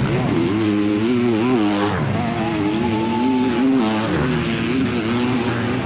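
Dirt bike engines revving up and down unevenly, with pitch rising and falling as the bikes fight through deep mud ruts, while a second engine holds a steadier note midway.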